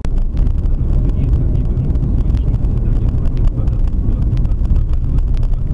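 Car driving, heard from inside the cabin: a steady low engine and road rumble with crackling wind noise on the microphone.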